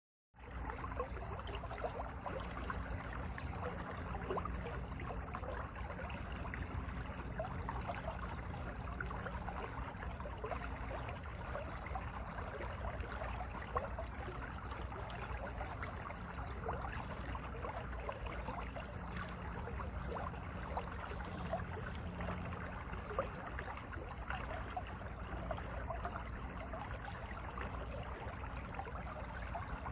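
Mountain valley stream flowing over rocks: a steady rush of water with many small splashes and gurgles. It starts abruptly a moment in.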